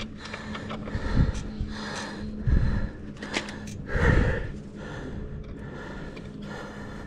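A mountain biker breathing hard, out of breath just after a timed race stage, with three heavier breaths about a second and a half apart over a faint steady hum.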